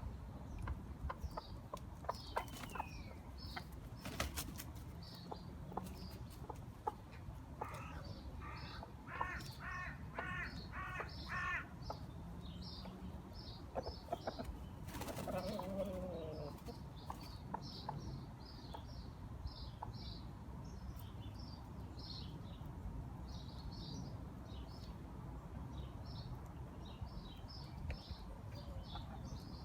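Small birds chirping over and over in short high notes, over a steady low background rumble. Around a third of the way in, a louder bird call repeats about six times in a row.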